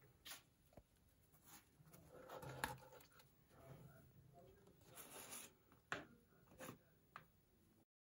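Near silence with faint rustling and a few soft, scattered clicks, which cut off to digital silence near the end.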